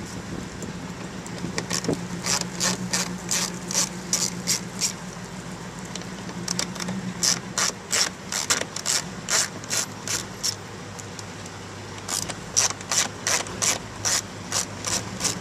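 Ratcheting screwdriver clicking as it backs out the screws holding a car door speaker, in three runs of quick, evenly spaced clicks, over a low steady hum.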